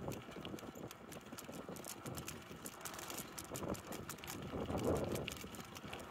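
Bicycle rolling along a gravel road: tyres crunching over loose stones, with many small irregular clicks and rattles from the bike.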